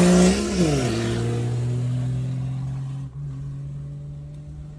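Diesel pickup engine heard from inside the cab, coming off high revs as its pitch drops sharply within the first second, then running at a steady lower speed that slowly fades.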